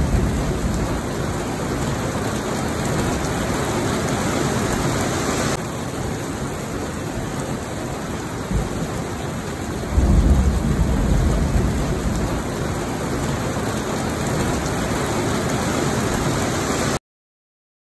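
Heavy rain pouring steadily, with a low rumble of thunder swelling at the start and again about ten seconds in. The rain cuts off abruptly just before the end.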